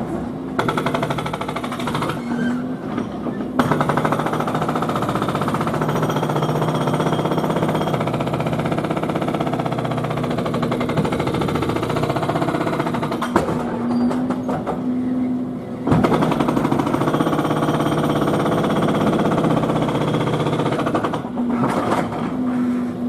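Jackhammer on nearby building work, heard inside a living room, hammering in long continuous runs. It eases off for a couple of seconds a little over halfway through, then starts again.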